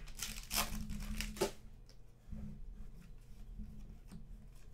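A foil trading-card pack being torn open, with the wrapper crinkling in a few sharp bursts over the first second and a half. After that come soft rustles and light ticks as the stack of cards is handled.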